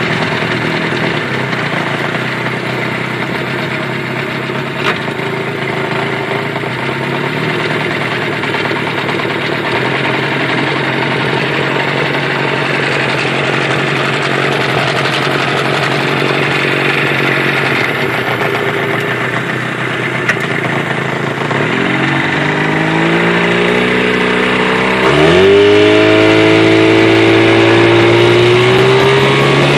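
Mercury 25 hp outboard motor running under way, with water rushing behind the boat. Its pitch drops a little about a third of the way in as it is throttled back. Near the end it is throttled up, the pitch rising in a glide and then a sharp jump, and it runs on faster and louder.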